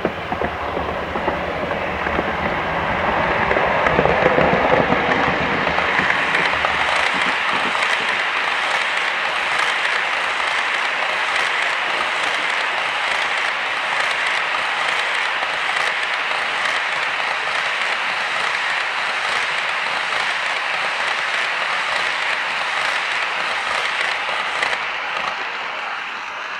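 Model electric train with a long string of low-floor wagons carrying model lorries running past close by, wheels clicking steadily over the rail joints, with a low rumble in the first few seconds as the locomotive goes by. The running sound fades near the end as the last wagons pass.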